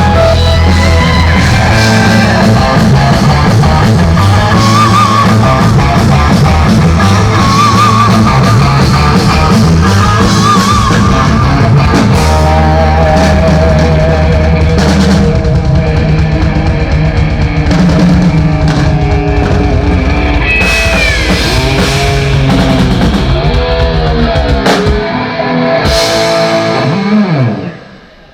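Rock band playing an instrumental passage with electric guitar, bass and drum kit, the guitar line wavering with vibrato. The music stops abruptly near the end.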